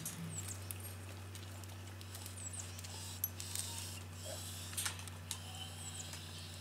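Yard ambience: a steady low hum with faint high chirps and a few sharp clicks and taps over it.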